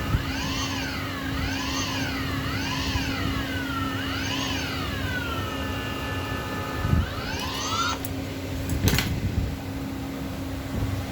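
A high whine with several tones, like a small motor, swooping up and down in pitch four times, then holding steady, then rising and cutting off suddenly, followed by a click.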